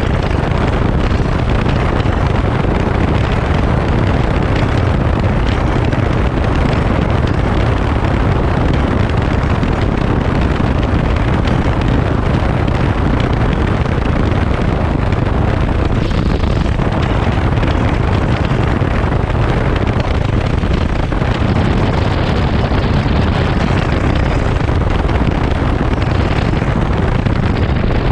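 Daelim Daystar 125 cc V-twin cruiser riding at a steady road speed: the engine running under continuous wind rush over the microphone, with no gear changes or bursts standing out.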